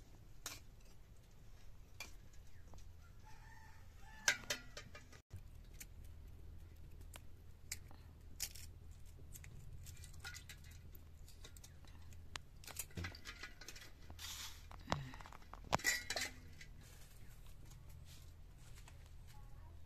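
Scattered light clinks and small splashes of eggs being handled in an aluminium pot of water and set on a steel plate, with chickens clucking in the background.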